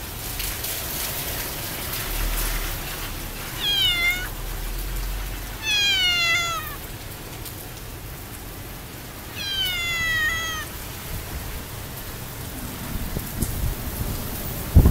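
A cat meowing three times, each meow about a second long and dropping slightly in pitch, over the steady hiss of heavy rain.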